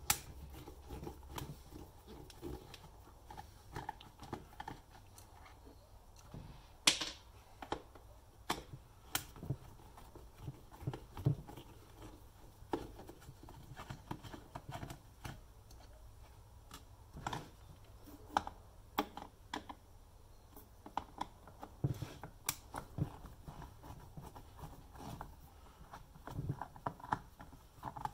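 Screwdriver backing screws out of a thermoelectric car cooler's plastic housing: scattered small clicks and knocks of the tool and the hollow plastic case being handled, with one sharper click about seven seconds in.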